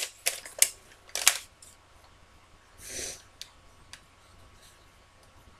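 Plastic shopping bag and paper being handled: a quick run of sharp crinkles and clicks, then one short rustle about three seconds in, and a few faint ticks after.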